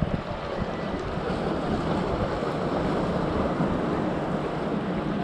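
Steady rush of sea surf on a rocky shore, mixed with wind buffeting the microphone.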